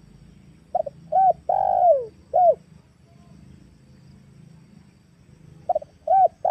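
Female spotted dove cooing: a four-note phrase about a second in (a short note, a second short note, a longer falling note, then a short last note), and the same phrase starting again near the end. A faint low hum runs underneath.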